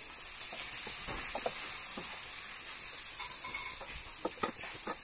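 Steady sizzling hiss of food frying in oil, with a few light clicks or knocks near the end.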